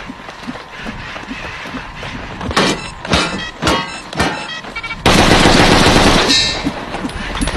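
Gunfire from a rifle: a run of about half a dozen separate sharp shots, then a loud continuous burst of noise lasting a little over a second, the loudest part.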